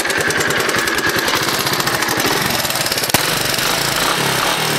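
Honda ATC 200 three-wheeler's single-cylinder engine idling with steady, even exhaust pulses, its front exhaust pipe just resealed with foil, aluminium tape and Permatex so that no leak is felt. A single sharp click sounds a little past three seconds in.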